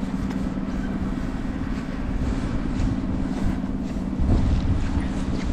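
Steady low rumble of city traffic with wind on the microphone, growing louder about four seconds in.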